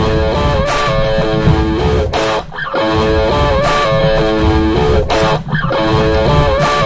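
Rock music on the soundtrack: an electric guitar plays a repeating riff of held notes over bass, the phrase coming round about every two and a half to three seconds.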